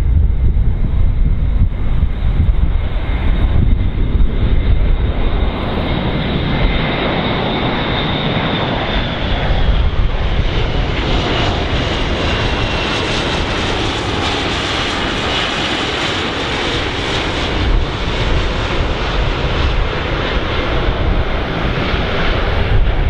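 Airplane's engines on landing approach, passing close: a steady rumble with a high whine that slides slowly down in pitch, loudest past the middle as the aircraft goes by.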